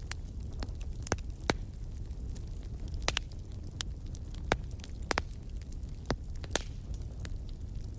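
Campfire burning: wood crackling with sharp, irregular pops over a steady low rumble.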